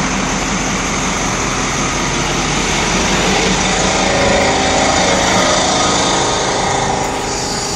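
A Kodiak truck's engine running loud and steady at close range, with a dense hiss over it that eases slightly near the end.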